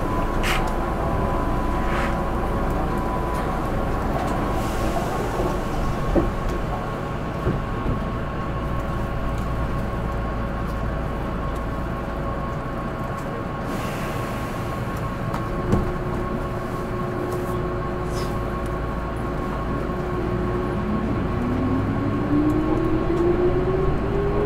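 Keihan 8000 series electric train with a steady hum of on-board equipment and a few short knocks. About 20 seconds in, a motor whine starts and climbs steadily in pitch as the train pulls away from the station and gathers speed.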